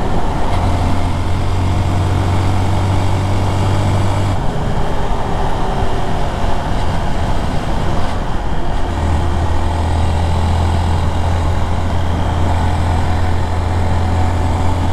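A 2019 Honda Monkey's 125cc single-cylinder engine running under way at steady cruising speed, mixed with wind rush. Its steady low drone weakens about four seconds in and comes back about nine seconds in.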